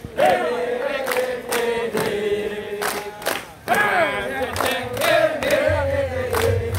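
A group of Banser men chanting a yel-yel in unison, sung with rising and falling pitch. Sharp hand claps keep time about twice a second.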